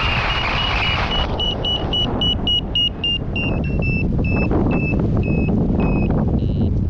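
Paragliding variometer beeping over wind rushing on the microphone. The beeps come quickly at first, then slow and drop slightly in pitch in the second half, the vario's sign of a weakening climb.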